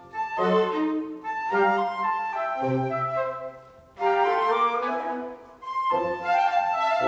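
Orchestral music with a flute carrying the melody, played in short phrases that break off briefly about four seconds in and again near six seconds.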